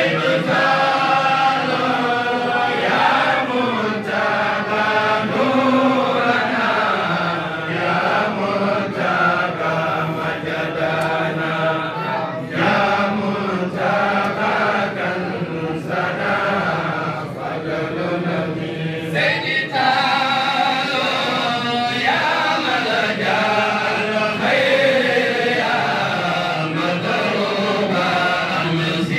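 A group of men chanting together in Arabic, a melodic Islamic devotional chant with long, gliding held notes.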